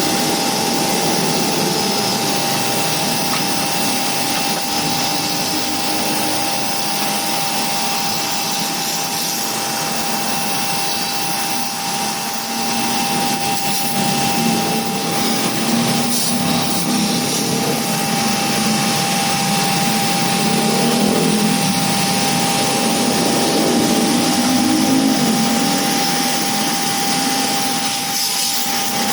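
Electric pressure washer running steadily, its motor and pump giving a constant whine under the hiss of the water jet spraying the air conditioner unit.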